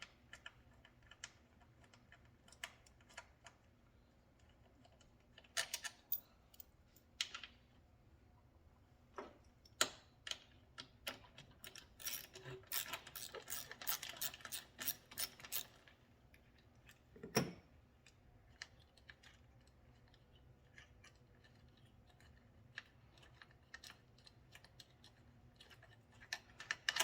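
Small socket ratchet clicking in bursts, with scattered metal clinks, as 8 mm bolts are worked out of a mini bike's aluminium final drive case. The busiest stretch of clicking comes about halfway through.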